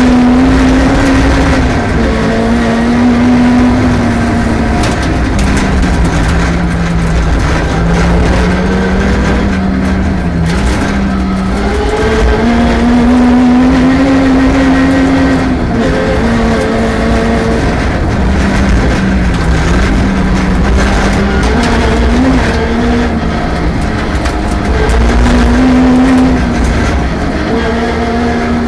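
Rally car engine running hard on a stage, its note rising and falling repeatedly with throttle and gear changes over steady road noise.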